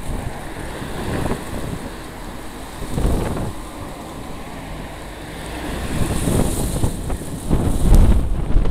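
Wind buffeting the microphone in uneven gusts, a low rumble that swells about three seconds in and most strongly near the end, with a light hiss of wind through tall reeds.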